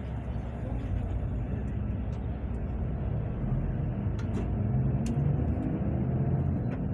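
Steady low rumble of engine and tyre noise inside a moving road vehicle, swelling slightly about four seconds in, with a few faint light rattles.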